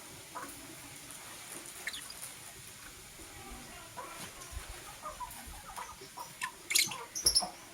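Lovebirds chirping: scattered short chirps and clicks, with a few louder, sharp calls near the end.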